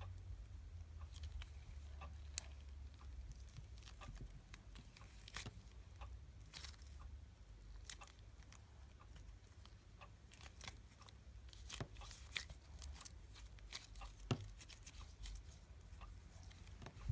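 Smooth putty being squished and stretched by hand, giving faint, irregular little crackles and clicks in clusters, over a steady low hum.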